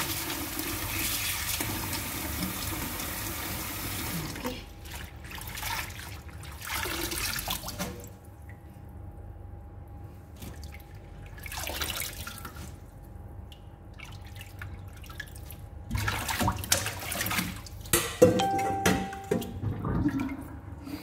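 Kitchen tap running into a stainless steel bowl of arugula leaves in a steel sink, shutting off about four seconds in. After that, hands swish and splash the leaves in the water, with louder clinks and knocks of metal near the end.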